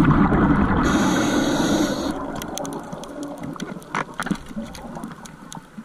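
Underwater rush of a diver's exhaled bubbles, starting suddenly and fading over about two seconds. Scattered clicks and a couple of knocks from gear follow around four seconds in.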